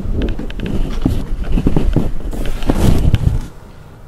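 Handling noise on a sound recorder: loud, irregular rubbing, rumbling and clicking right against its microphone, stopping suddenly about three and a half seconds in.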